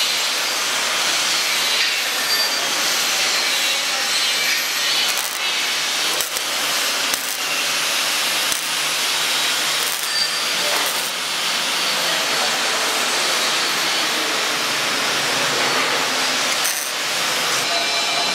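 MIG welding arc burning on steel strip, a steady hiss with a few sharp clicks.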